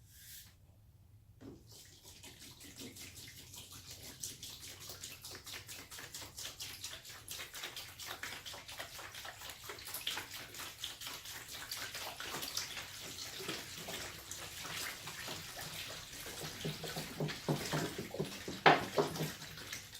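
A gallon of water poured into the laser's cooling-water tank, splashing and gurgling. It starts about a second and a half in, grows louder, and stops at the very end.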